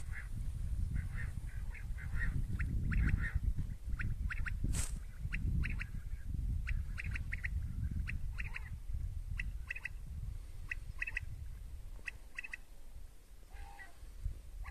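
Common quail calling: short, clipped notes in quick groups of two or three, repeated every second or so. Wind rumbles on the microphone underneath, with a brief hiss about five seconds in.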